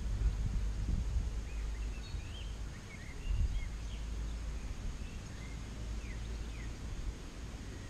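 Wind on the microphone as a low rumble, strongest at the start, with a scatter of short bird chirps through the middle.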